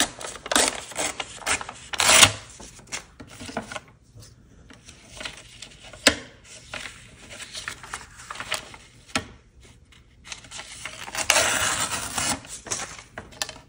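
Paper torn along a deckle-edge ruler in a few short rasping rips, followed by paper and ruler being shifted and slid across a cutting mat with a couple of light taps.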